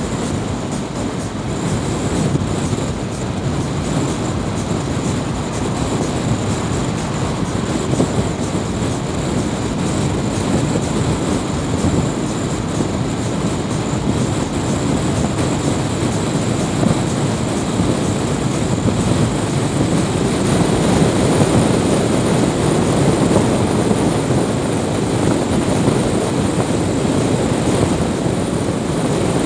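Car driving at road speed, heard from inside the cabin: steady engine and tyre noise, getting a little louder about two-thirds of the way through.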